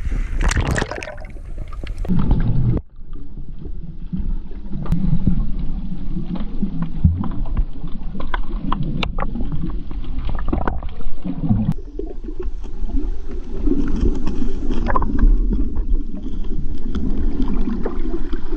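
Surface splashing as a snorkeller goes under, about three seconds in. After that, the muffled underwater rumble of water moving around him, with scattered sharp clicks.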